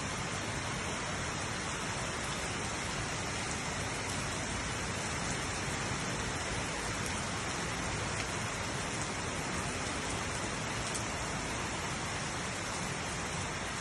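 Steady rain falling, an even dense hiss with occasional faint drop ticks.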